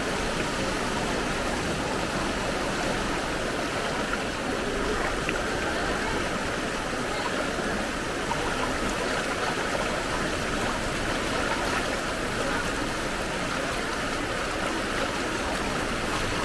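Steady rushing water of a strong, fast-flowing street flood.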